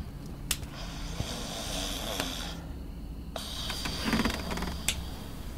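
A person snoring: a long breathy snore, then a louder rattling snore about four seconds in.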